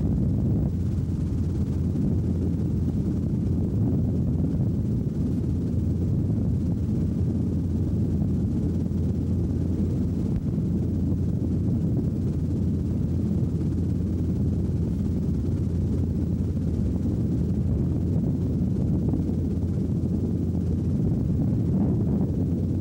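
Robinson R22 helicopter in level flight, heard from inside the cabin: a steady low drone of piston engine and rotor that holds an even level and pitch throughout.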